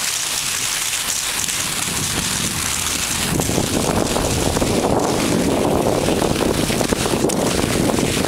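Skis hissing and scraping across hard spring crust snow at speed, with wind buffeting the microphone. The wind rumble grows heavier about three seconds in.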